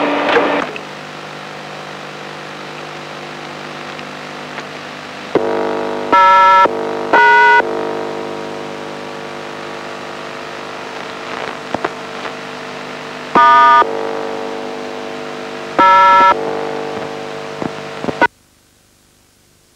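Four short touch-tone (DTMF) beeps from a hand-held touch-tone encoder, sent over the radio link as commands to a microprocessor-controlled amateur TV repeater to call up its colour bars. The first two come close together, the other two several seconds apart, over a steady hum. The sound cuts off suddenly near the end, leaving a faint hiss.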